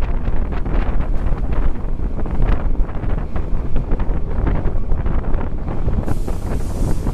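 Wind buffeting the microphone at a moving train's window, over the train's steady rumble and the clatter of its wheels on the track. About six seconds in, a steady hiss joins in.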